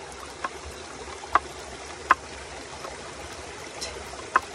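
A kitchen knife chopping garlic cloves on a wooden cutting board: four sharp knocks at uneven intervals, the loudest two about a second and a half in. Under them runs the steady rush of a shallow rocky stream.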